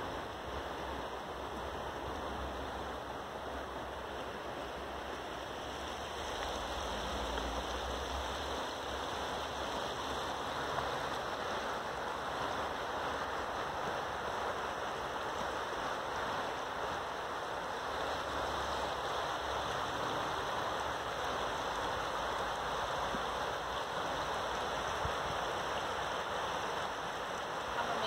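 Steady rush of a wide, fast-flowing river.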